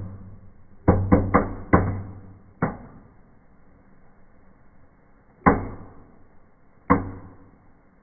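Red Knallbonbon indoor fireplace firework going off in sharp bangs as it burns. There is a quick run of four cracks about a second in and one more shortly after, then two single bangs about a second and a half apart later on, each dying away quickly.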